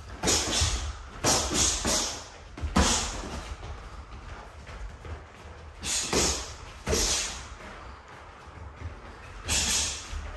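Boxers sparring, hissing out sharp breaths as they throw punches. The short hissing bursts come in clusters in the first three seconds, twice around six to seven seconds in, and once near the end.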